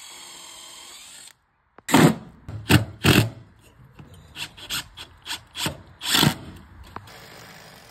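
Screws being driven by hand with a screwdriver through the condenser's metal mounting feet into a plastic pad: a series of irregular rasping strokes, starting about two seconds in, the loudest near the end.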